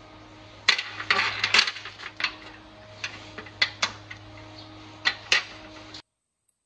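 Metal tools clinking and knocking on a wooden workbench as a brass welding earth clamp is unclipped from a bent metal rod and set down: a run of sharp, irregular clicks, thickest in the first couple of seconds and thinning out.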